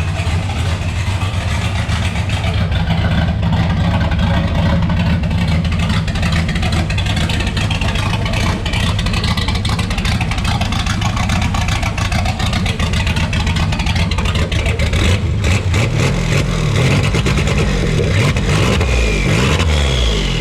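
Turbocharged car engine idling steadily on its first runs, then revved several times near the end, with a high whistle rising and falling as it revs.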